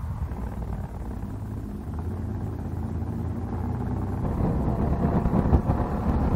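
Motorcycle engine running and accelerating, pitch rising and getting steadily louder, heard over a low wind rumble at the helmet.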